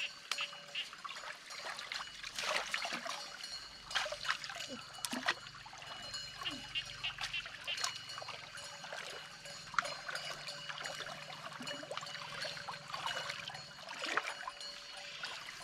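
Hands groping through shallow, muddy stream water, stirring up irregular small splashes and trickles.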